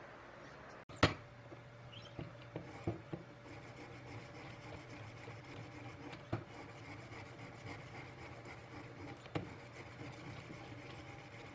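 Hand-tool rubbing and scraping on a workpiece, starting about a second in with a sharp knock, then a few lighter knocks over a steady low hum.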